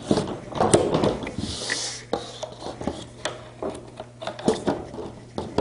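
Latch clips on a ceiling air inlet's bottom lid being worked and snapped into place by hand: a run of irregular clicks, taps and rubbing.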